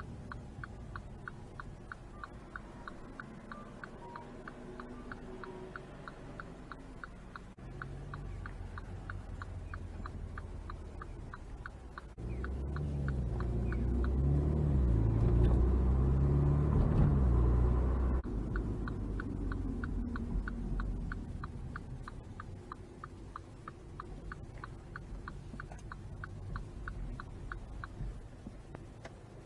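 Turn-signal indicator ticking steadily inside a MINI John Cooper Works over engine and road rumble. About twelve seconds in the ticking stops and the rumble swells as the car accelerates, then dies back down, and the ticking starts again about six seconds later.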